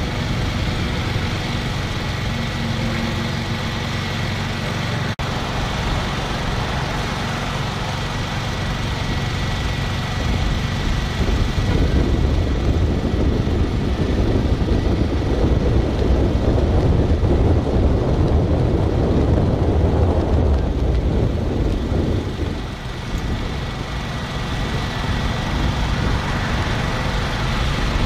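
Road traffic noise of cars moving in a slow caravan: a steady rumble of engines and tyres that grows louder for about ten seconds in the middle.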